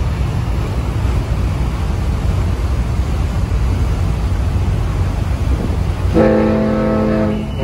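Steady low rumble of wind and the moving ferry, then about six seconds in a single horn blast that holds for over a second.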